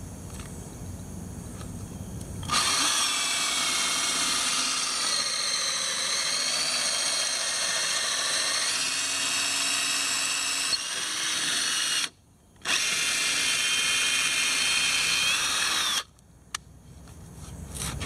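Cordless drill boring through a pressure-treated wooden board with a long drill bit, starting a couple of seconds in and running steadily as a whine, breaking off briefly after about nine seconds, then running again for a few seconds before stopping.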